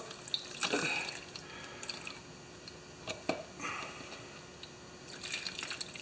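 Methyl hydrate pouring and dripping from a jug into a plastic cup holding a carburetor, with scattered drips and small splashes, while the carburetor is rinsed to drive the water out of it.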